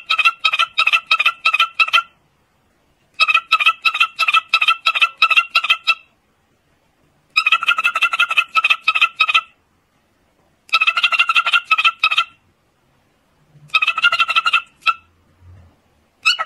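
Cockatiel giving rapid, evenly repeated chirps at one steady pitch, about four a second, in runs of one to three seconds with roughly a second's pause between.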